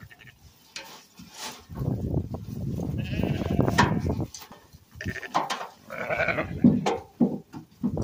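Sheep bleating twice, the second call around six seconds in the clearest, over the rustle of loose hay being pulled apart and dropped into the feeder.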